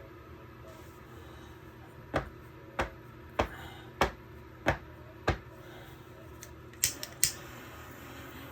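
Six sharp taps, evenly spaced a little under two a second, then three quicker clicks near the end.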